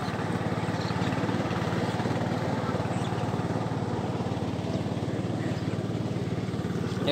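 Small engine of a mini-tractor grass cutter running steadily, with a fast even pulse.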